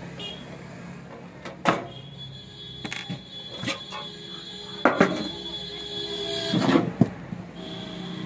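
Sheet-metal cover of an amplifier cabinet being lifted off and the chassis handled on a wooden bench: a series of sharp metal knocks and clanks, with a louder cluster of knocks and rattling near the end, over a steady low hum. A thin high tone runs through the middle while the cover is being handled.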